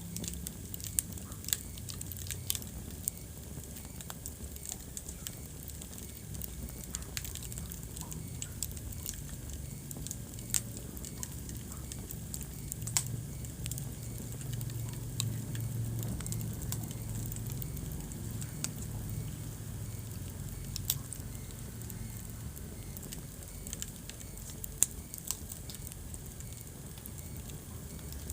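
Wood fire burning in a fireplace: irregular sharp crackles and pops over a steady low rumble of flames. The rumble swells a little around the middle.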